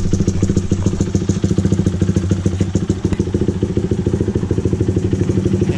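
A motorcycle's single-cylinder four-stroke engine idling steadily through a loud aftermarket exhaust with a mesh-insert silencer tip. The exhaust gives an even, rapid train of pulses that holds at one pitch.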